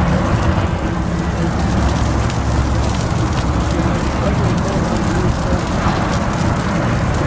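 Burger patties sizzling on a flat-top griddle: a steady crackling hiss over a low rumble.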